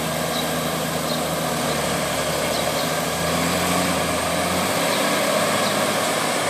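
Valtra T191 tractor's diesel engine running steadily under load as it drags a levelling implement through wet mud; the engine note rises slightly about three seconds in.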